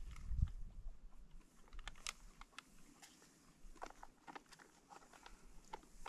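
Spoons and foil food pouches handled while eating: scattered small clicks, scrapes and crinkles, with chewing. A brief low rumble about half a second in.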